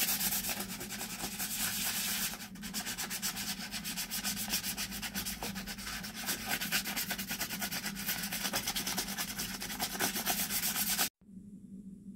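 Folded sandpaper rubbed by hand back and forth in the carved grooves of a wooden hiking-stick hand grip, a dense rasping of rapid strokes. It stops abruptly near the end, leaving a faint steady hum.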